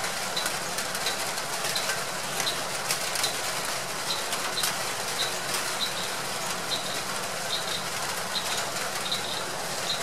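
Steady outdoor noise with a short, high chirp repeating about twice a second and a few faint crackles.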